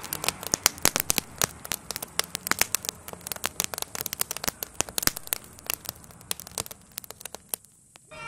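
Burning wooden garden shed crackling and popping: many irregular sharp cracks in quick succession, thinning out near the end. A siren fades away at the start and starts up again at the very end.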